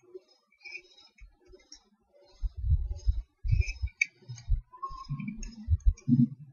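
Computer mouse clicks and scroll-wheel ticks. From about two seconds in they are joined by louder, dull thumps.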